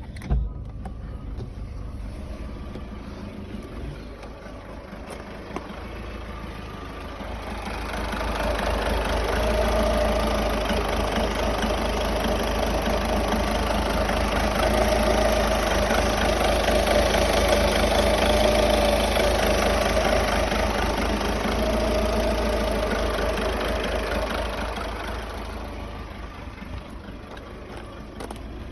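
Seat Ibiza 1.6 TDI four-cylinder diesel engine idling, with a faint background noise that the owner suspects comes from the timing belt or the injectors. About eight seconds in a louder rushing noise swells up over the engine and fades away again after about twenty-five seconds.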